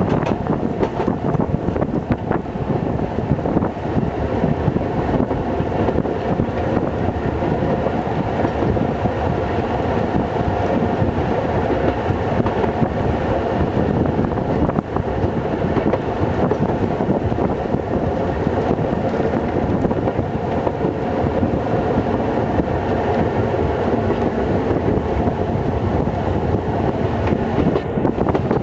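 Metre-gauge museum train hauled by the diesel locomotive V1 running steadily along the track, heard from the open end platform of a coach: a continuous rumble and rattle of the wheels on the rails and the moving coaches.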